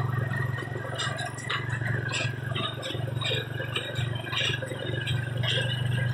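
Ford tractor pulling a small square baler through hay: a steady engine drone with the baler's repeated clanking and rattling.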